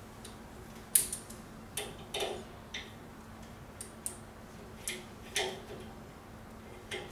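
Irregular light metallic clicks and clinks as stainless steel high-pressure tubing and its fittings are handled and the gland nuts started by hand on a waterjet pump's high-pressure cylinder; the sharpest click comes about a second in.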